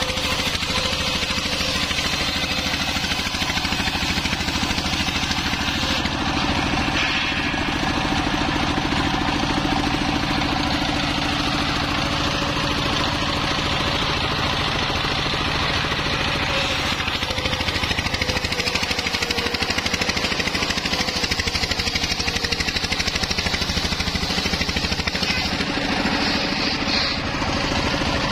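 Homemade circular saw driven by a stationary single-cylinder diesel engine running steadily, its blade ripping lengthwise through teak planks to cut them into beams. The engine's steady running sits under the hissing rasp of the blade in the wood.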